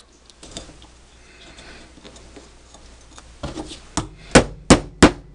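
Hammer striking a nail through the end of a bent metal bottle cap on a wooden block, punching a hole for a split ring. After a few seconds of quiet handling, there are four sharp strikes in quick succession near the end.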